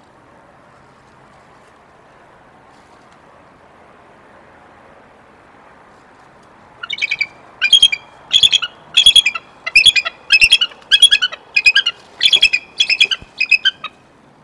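Bald eagle calling: after several seconds of faint hiss, a run of about eleven high, chittering calls, each a quick stutter of notes, comes at roughly one and a half a second through the second half.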